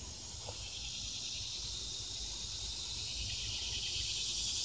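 Steady, high-pitched insect chorus with a fine pulsing texture, growing a little louder near the end, over a faint low rumble.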